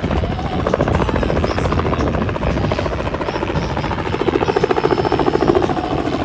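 Helicopter flying in close, its rotor blades beating in a rapid, even chop over the engine. It grows louder toward the end.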